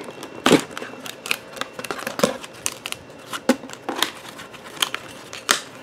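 Die-cut cardboard kit pieces being pressed out of their sheet by hand: an irregular string of sharp clicks and snaps as the card tabs break.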